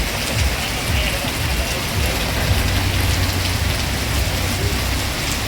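Heavy rain pouring down steadily, spattering on surfaces.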